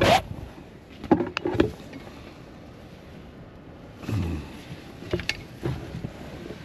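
Handling noise as someone climbs into a rooftop tent: a sharp knock at the start, a few quick knocks about a second in, then nylon tent fabric rustling with a couple of light ticks.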